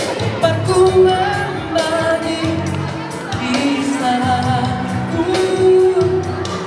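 A teenage boy singing a song into a handheld microphone over backing music with a steady beat, his voice holding long, wavering notes.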